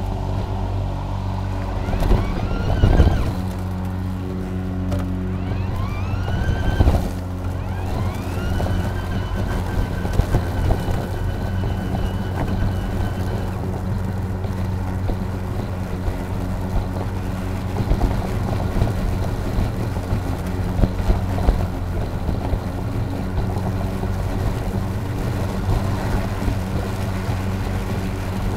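EGO Power+ LM2135SP 56 V battery self-propelled lawn mower running as it cuts grass: a steady electric motor and blade hum. A higher whine rises in pitch a few times in the first half and holds for a few seconds, and there are occasional bumps.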